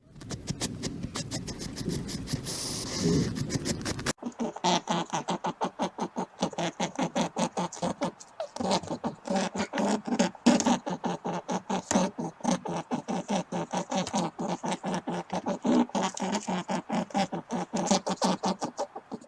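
An animal making a long run of short pulsed grunts or calls, about four or five a second, after a few seconds of rustling.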